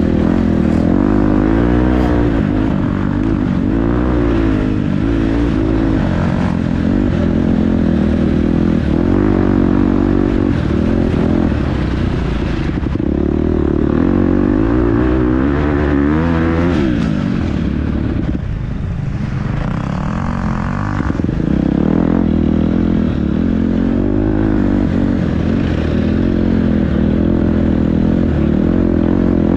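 Dirt bike engine ridden hard on a trail, revving up and dropping back over and over as the rider works the throttle and gears. It eases off for a few seconds past the middle, then pulls hard again.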